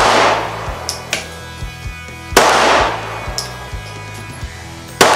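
Three pistol shots, one at the start, one about two and a half seconds in and one near the end. Each is a sharp crack with a short echoing tail, over background music with a steady beat.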